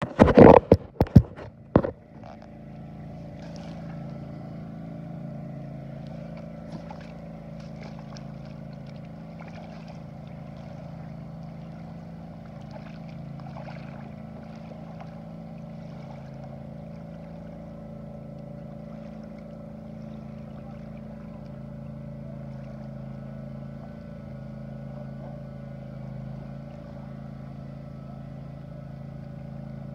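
A few loud knocks and bumps in the first two seconds, then a boat motor running steadily at a constant speed.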